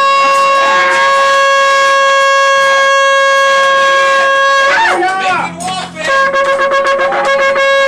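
Shofar (ram's horn) sounded in two long blasts: a steady held note for nearly five seconds that breaks into a warbling wobble of pitch, then a second held note starting about six seconds in.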